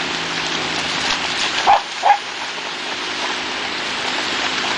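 A dog barks twice in quick succession, two short sharp barks over a steady wash of surf noise.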